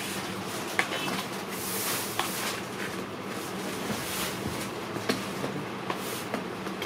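Spatula scraping and spreading soft cream on a worktop, with scattered sharp ticks as the blade knocks the surface, over a steady low hum and hiss.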